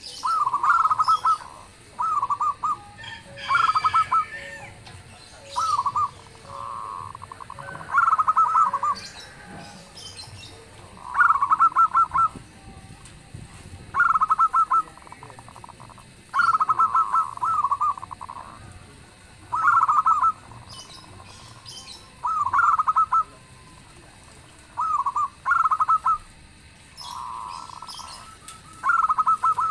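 Zebra dove (perkutut) cooing: loud, repeated phrases of quick rolling notes about every two to three seconds, with softer coos between some of them.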